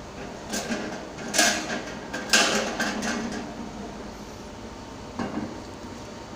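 Metallic clunks and rattles from a manual, non-electric coin-operated napkin vending machine as its mechanism is worked and a napkin drops out. The loudest clatter comes about two and a half seconds in, and a last knock a little after five seconds.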